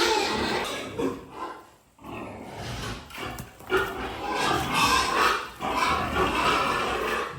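Pigs squealing in harsh bursts, with a short lull about two seconds in.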